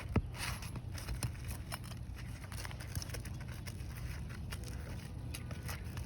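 Hand work on asphalt roof shingles: scattered scrapes, crackles and small knocks, with one sharp knock just after the start, over a steady low hum.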